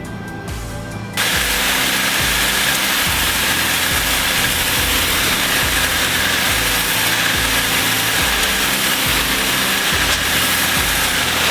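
Electric pressure washer running and spraying: a loud, steady hiss that starts suddenly about a second in, over background music with a steady beat.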